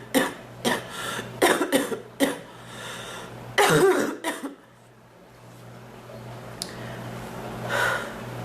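A woman coughing in a spell of short, harsh coughs. About seven come in quick succession over the first two and a half seconds, then a longer, louder bout about three and a half seconds in, and one more cough near the end.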